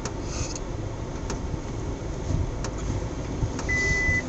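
Cabin rumble of a Suzuki Jimny crawling along a rough dirt track, with a few light knocks scattered through it. A short, steady high beep sounds near the end.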